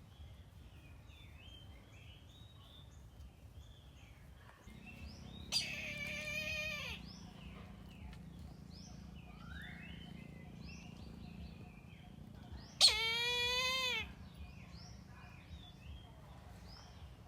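A kite calls twice, each a loud drawn-out call of about a second and a half that drops in pitch at the end, the two calls about seven seconds apart. Small birds chirp faintly throughout, and a faint low hum comes in about five seconds in.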